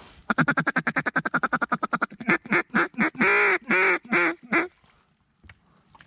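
Mallard duck call blown close by: a fast run of feed chatter, about a dozen clucks a second, then a string of loud hen quacks, two of them drawn out, stopping abruptly near the end.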